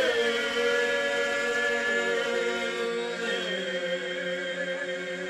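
Male folk group of seven voices singing unaccompanied in the old Serbian village style, holding a long sustained chord. The top voice drops out about two seconds in and a lower part steps down a little after, the sound easing off slowly.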